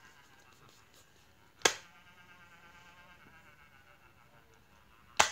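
Hatchimal toy pecking its way out of its plastic egg: a faint, thin buzz runs throughout, and two sharp taps on the shell come about three and a half seconds apart, the loudest sounds.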